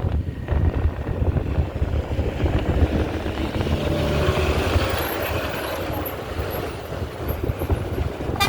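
Heavy vehicle such as a truck or bus, its engine running with a steady low rumble, and a brief sharp sound near the end.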